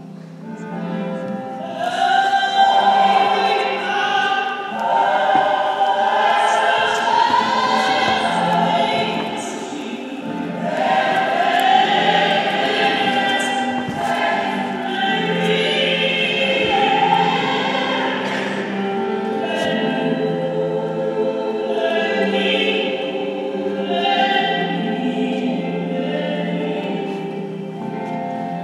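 Recorded choir singing a slow, gospel-style song with accompaniment, softly at first and then swelling to full voice after about two seconds.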